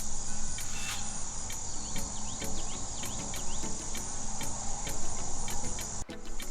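Insect sound played as a tiger moth's call: a steady high-pitched chirring with regular clicks, about two or three a second. It breaks off briefly near the end.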